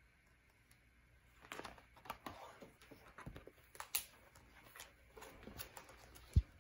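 A large paper photo book being handled: pages and card cover rustle and flap as it is closed and lifted, with a sharp tick about four seconds in, then a single low thump near the end as it is laid down on a table.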